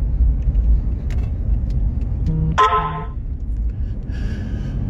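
Steady low rumble of a car's engine and road noise heard from inside the cabin. A short car-horn toot comes about halfway through.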